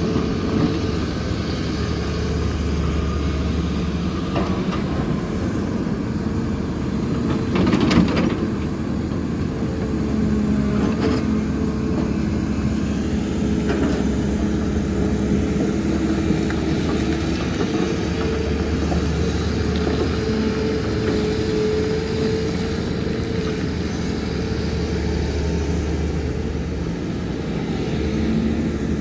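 Heavy excavator's diesel engine running steadily at working revs, with a louder metallic clank about eight seconds in and a few fainter knocks after it.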